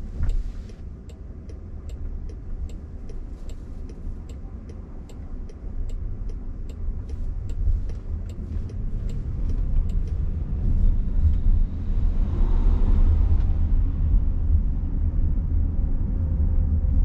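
Turn-signal indicator ticking steadily inside the cabin of a Waymo Jaguar I-Pace, a little over two ticks a second, over low road and tyre rumble. The ticking stops about ten seconds in as the car straightens out from a right turn, and the rumble then grows louder as it picks up speed.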